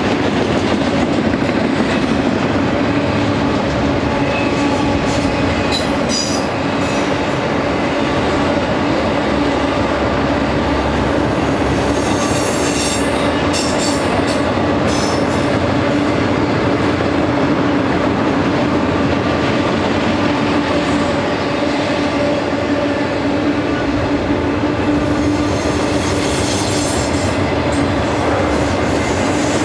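Double-stack container cars of a freight train rolling past: a steady rumble and clatter of steel wheels on the rails, with high-pitched wheel squeals a few times as the cars pass.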